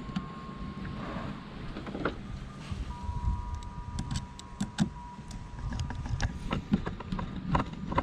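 Small clicks and knocks of fuel pump module parts being handled and fitted together by hand, coming more often in the second half, over a low background rumble.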